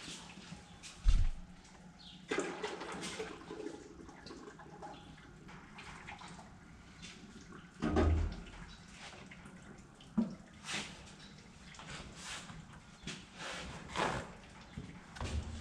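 Engine oil dripping and trickling from the oil filter mount of a Case IH STX 275 tractor as the old filter is pulled off, with scattered clinks and knocks from handling the filter and tools. Two heavy thumps stand out, about a second in and about eight seconds in.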